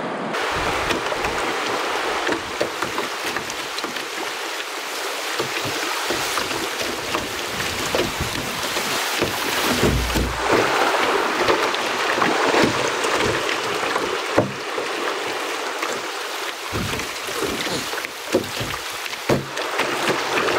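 Rushing white water of a shallow rapid, heard from a canoe running through it, with scattered knocks from the canoe and paddle.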